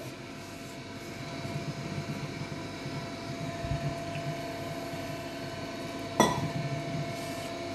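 A hand mixing flour in a stainless-steel bowl while water is poured in from a steel tumbler, over a faint steady hum. A single sharp metallic clink comes about six seconds in.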